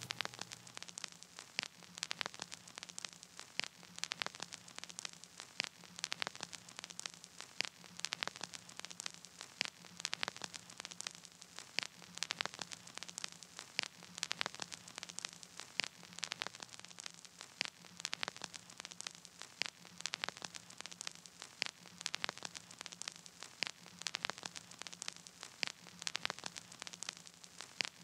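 Crackling static: irregular sharp clicks over a faint hiss and a low steady hum, with no music playing.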